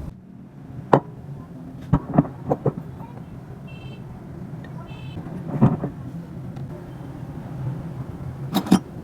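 Sharp metal knocks and clicks from bench vise parts being handled, scattered irregularly: a quick cluster about two seconds in, a single knock later on, and a double knock near the end. Two brief high ringing tones sound in between.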